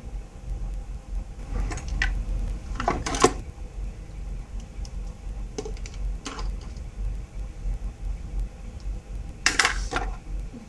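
Small hard objects being handled and set down: makeup tools and containers clicking and clattering in a few short groups, loudest about three seconds in and again near the end, over a steady low hum.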